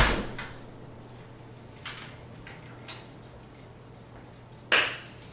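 Apartment front door pushed shut with a thud, followed by a few faint clicks and rattles at the door. A short, loud rush of noise comes near the end.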